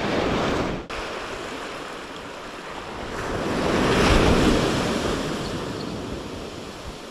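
Ocean surf breaking and washing up a sandy beach, with wind on the microphone. The sound drops suddenly about a second in, then the wash swells to its loudest near the middle and fades.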